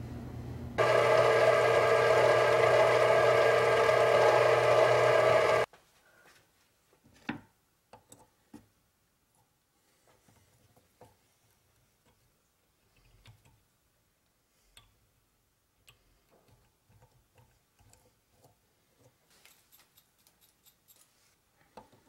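Mini-lathe motor running loudly with a steady whine of several tones for about five seconds, then cutting off suddenly. After it, faint scattered clicks and knocks of hand tools and metal being handled at a bench vise.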